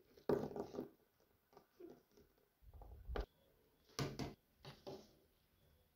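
Faint handling noise of small plastic toys on a table: a few soft knocks, taps and rustles at irregular intervals, the sharpest about three and four seconds in.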